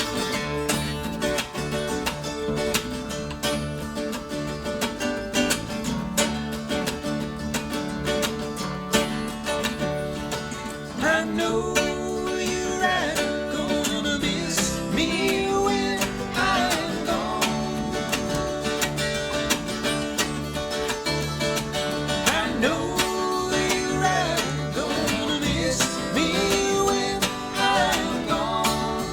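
Acoustic string band playing an instrumental jam: strummed guitar chords under quick picked lead lines. About eleven seconds in, a lead with sliding, bending notes comes to the front and keeps on.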